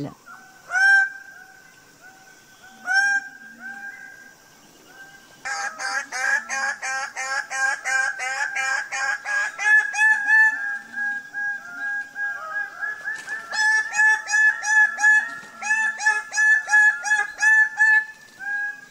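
Male bird-of-paradise calling: a single loud call about a second in and another about three seconds in, then from around five seconds a long, fast run of repeated calls, roughly three a second, broken by a short pause near twelve seconds.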